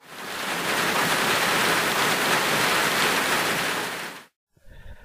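A steady rushing hiss of noise, like rain or a waterfall, fading in at the start and fading out after about four seconds.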